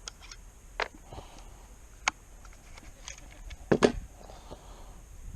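A few scattered sharp clicks and knocks, the loudest a quick clattering pair about two-thirds of the way through.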